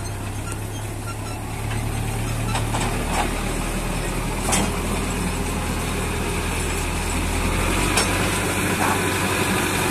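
Ford and Belarus tractors' diesel engines running steadily as they pull a loaded sand trolley, a low continuous hum whose note drops slightly about three seconds in.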